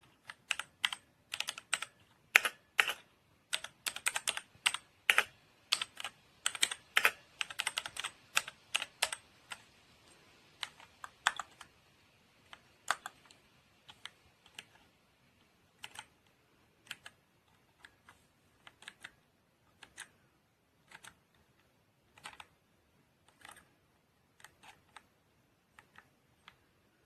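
Mechanical keyboard keys being typed on: quick, dense clacking for about the first ten seconds, then slower, single key presses spaced out to the end.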